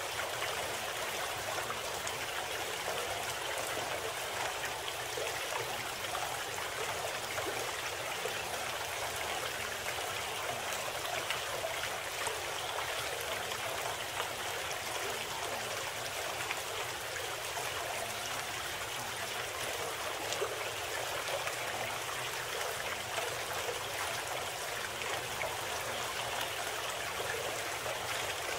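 Steady running water of a stream, an even rushing and trickling sound without breaks.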